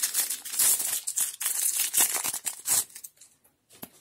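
Hands tearing open and crinkling the foil wrapper of a trading-card booster pack: a dense crackling rustle that dies away about three seconds in, leaving a few soft clicks.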